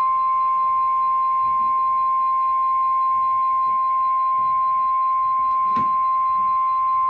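NOAA Weather Radio's 1050 Hz warning alarm tone: one steady, unbroken beep at a single pitch, played through a weather radio receiver. It signals that a warning broadcast, here a severe thunderstorm warning, is about to follow.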